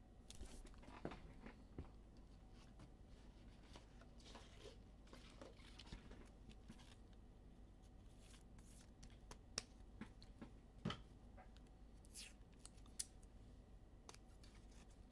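Near silence with faint, scattered clicks and rustles of trading cards being handled, and a few sharper clicks in the second half.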